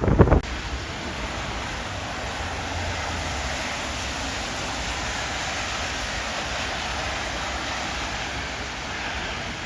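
Low gusty wind buffeting the microphone, cutting off suddenly about half a second in. After it comes a steady, even rushing hiss from the storm.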